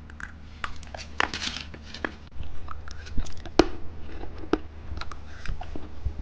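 Plastic candy wrapper being handled and torn open, crinkling and tearing with scattered sharp clicks.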